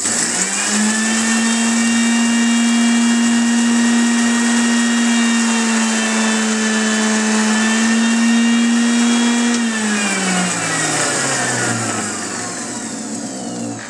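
Electric mixer grinder (mixie) running with its small stainless-steel jar grinding roasted coffee beans, a steady motor hum with a whine above it. About ten seconds in it is switched off, and the hum falls in pitch as the blades spin down.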